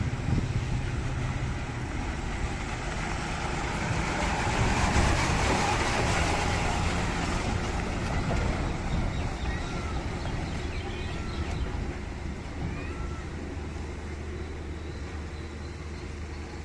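Heavy diesel machinery engine running steadily under a rushing noise that swells to a peak about five seconds in and then eases off.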